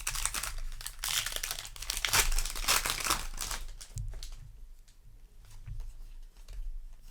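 Foil booster pack wrapper crinkling and tearing as it is handled, loudest in the first few seconds, then quieter handling.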